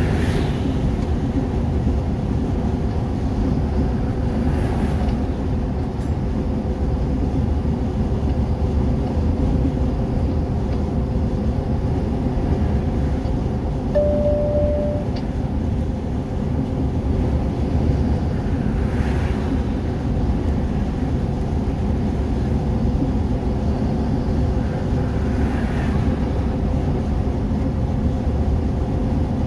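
Steady engine and road rumble heard inside a vehicle's cab while cruising on a motorway, with a few faint rushing swells. A short single beep sounds about halfway through.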